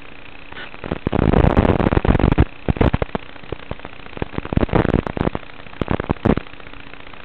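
Crackling static and sharp pops in irregular bursts over a steady hum, the heaviest bursts about a second in and again near the two-thirds mark. Typical of a flying FPV drone's audio track recorded through an analog video link.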